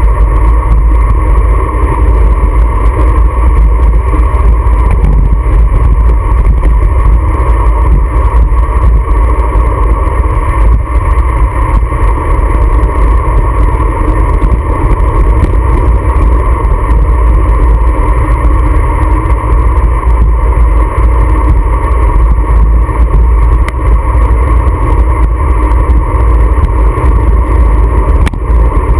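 Wind buffeting a bike-mounted action camera's microphone at road speed: a loud, steady, low rumble that never lets up.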